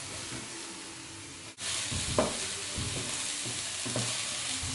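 Diced onion and garlic sizzling as they soften in hot olive oil in a frying pan, stirred with a wooden spatula that scrapes the pan a couple of times. The sizzle drops out for an instant about a second and a half in, then comes back louder.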